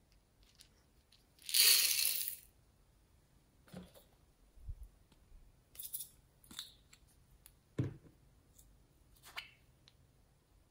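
Small plastic beads poured from a plastic bowl into a dish of slime: a short rattling clatter about a second and a half in. After it come a few light taps and clicks of handling.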